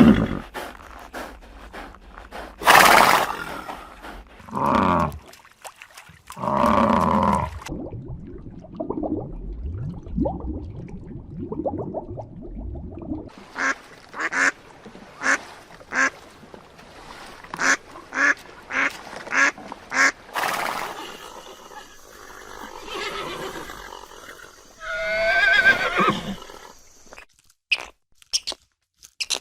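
A string of different animal calls. Several separate loud calls come in the first eight seconds, then a run of short, sharp calls repeated about once a second, and a long call wavering in pitch near the end.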